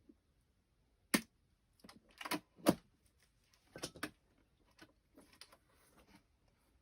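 Irregular knocks, clicks and scuffs of a rubber tire being worked onto a wheel rim by hand. The sharpest knocks come about a second in and near the middle.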